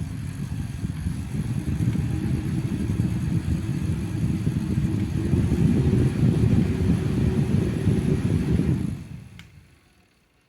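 Battery neck fan running close to the microphone, its airflow buffeting the mic as a loud low rumble. It winds down and stops about nine seconds in.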